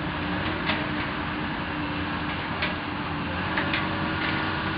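Komatsu hydraulic excavator's diesel engine running steadily during demolition work, with a few scattered sharp knocks and cracks of material breaking.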